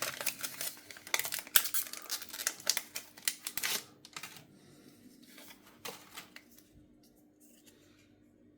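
Foil Pokémon booster pack being opened and its wrapper crinkled: a dense run of sharp crackles for about four seconds. After that come a few soft clicks and taps as the cards are handled.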